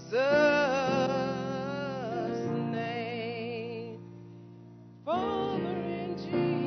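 Slow church music: a melody line with strong vibrato over sustained chords, the melody coming in loud near the start and again about five seconds in.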